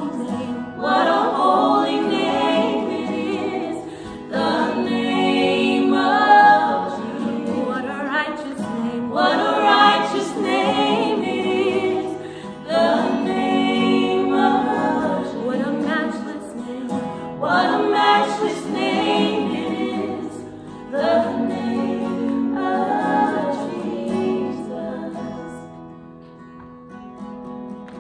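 A small worship team singing a slow worship chorus together in phrases of a few seconds each, backed by an acoustic guitar. Near the end the voices fade, leaving the guitar.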